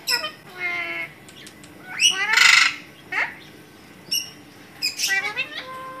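Alexandrine and ring-necked parakeets giving a run of short squawks and calls, with a loud harsh screech about two seconds in and a quick string of calls near the end.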